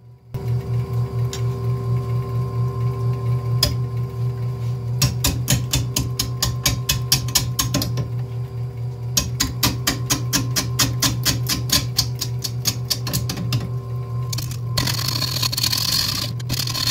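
A wood lathe turning a big, heavy acacia bowl blank at slow speed, about 214 rpm: a steady motor hum that pulses three to four times a second. From about five seconds in, rapid, even clicks join the hum, and near the end a loud hissing scrape takes over.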